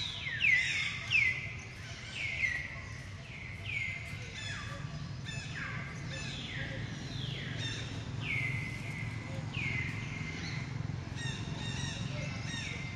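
Birds calling over and over, each call a short downward-sweeping whistle, several of them overlapping at times, over a steady low outdoor background.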